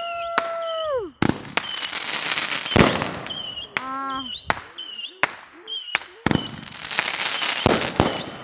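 Aerial fireworks exploding overhead: an irregular string of about ten sharp bangs, some coming in quick pairs.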